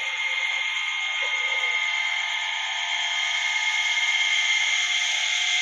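Steady, shrill chorus of night insects, several high pitches held together without a break.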